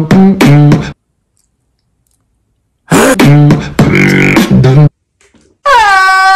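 Beatbox-style vocal loop from a meme soundtrack: a short phrase of pitched mouth sounds cuts off abruptly, about two seconds of dead silence follow, and the same phrase plays again. Near the end a single note slides down and holds.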